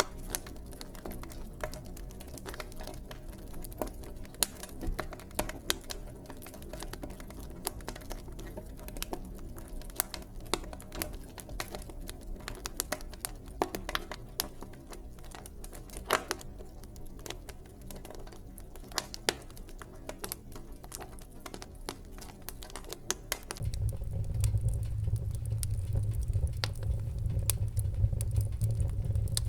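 Wood fire in a fireplace crackling, with dense irregular pops and snaps over a low rumble. About 23 seconds in, the low rumble of the flames grows louder.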